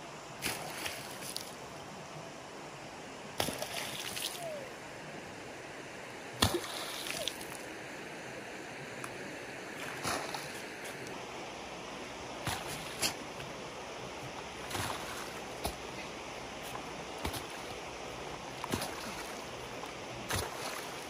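Irregular thuds and scrapes of a hoe and shovel digging wet earth, with dirt slopping into shallow water, over the steady rush of a stream. The strikes come every one to three seconds, the sharpest about six seconds in.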